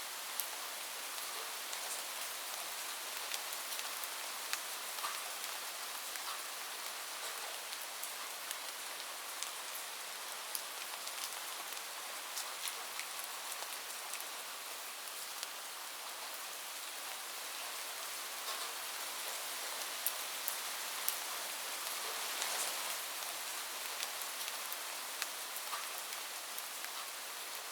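Steady rain falling on a roof: an even hiss with many sharp drop ticks, swelling briefly about two-thirds of the way through.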